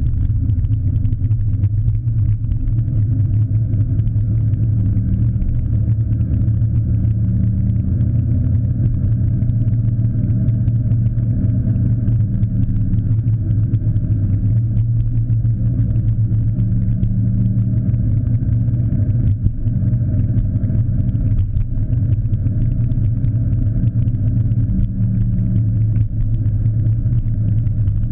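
Car driving on city streets: its engine and road noise form a steady low drone, heavily muffled because the camera sits in a sealed waterproof housing on the windshield.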